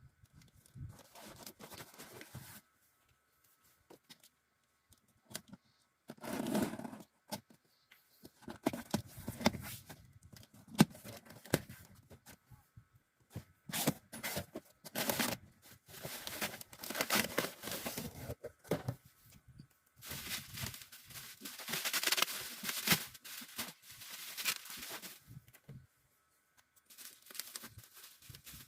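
Packaging being handled by hand: plastic and packing material rustling, crinkling and tearing in irregular spells with short pauses between them.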